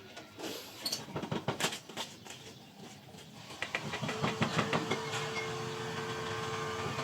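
Irregular knocks and clicks of work, then about four seconds in a small motor starts and runs with a steady hum while the clicking goes on.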